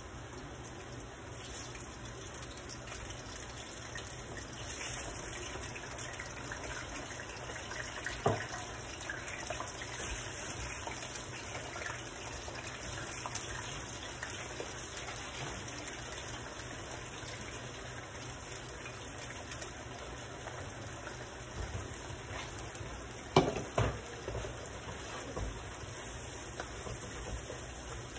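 Steady sizzle of plantain slices for tostones frying in hot oil, alongside a tomato-and-pepper sofrito cooking in a second pan. Sharp knocks of kitchenware come once about a third of the way through and louder near the end.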